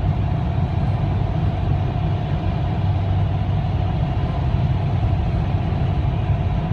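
Steady low road and engine noise of a car at highway speed, heard from inside the cabin.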